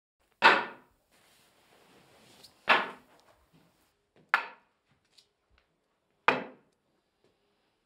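A walking cane striking a hard floor four times, about two seconds apart, as an elderly woman walks slowly in. Each knock is sharp and fades quickly.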